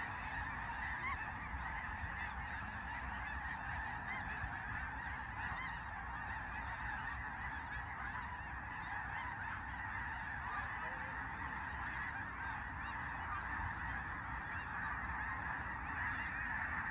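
A huge flock of snow geese calling in flight: a steady, dense din of countless overlapping honks.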